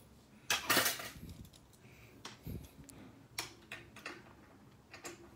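Metal hand tools clattering and clicking as a screwdriver is handled and set to the valve screws of a gas water heater. There is a loud clatter about half a second in, then a few scattered sharp clicks.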